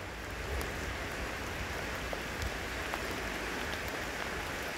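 Heavy rain falling steadily onto floodwater pooled in an underpass, with scattered individual drop ticks.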